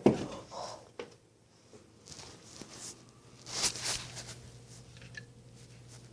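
Soft knocks and rustling handling noises, with a sharp knock at the start and a louder rustle past the middle; a steady low hum sets in about halfway.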